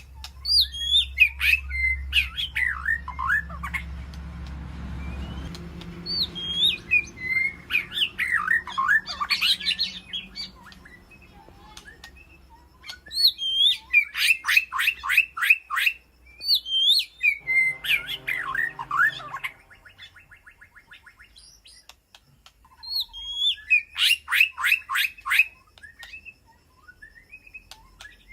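White-rumped shama singing: phrases of swooping, looping whistles alternate with fast rattling trills, each burst lasting a second or two with short pauses between. A low rumble sits under the first few seconds.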